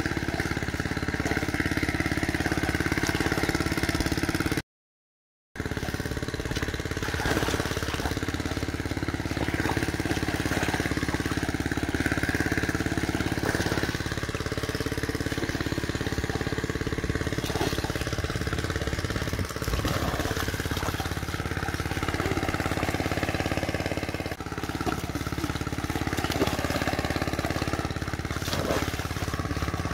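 Steady hum of an engine running at a constant speed, cutting out completely for about a second near five seconds in.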